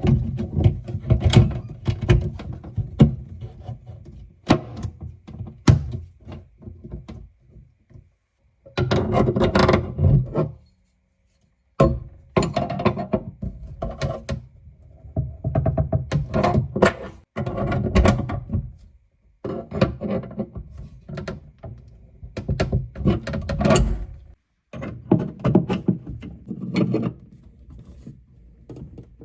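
Knocks and clunks of copper pipework and fittings being handled and fitted, in short stretches that break off with sudden cuts to silence.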